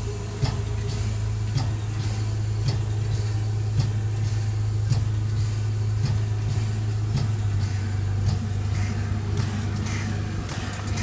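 LNER B12 4-6-0 steam locomotive on the move, heard from its cab: a steady low rumble with a sharp click about once a second.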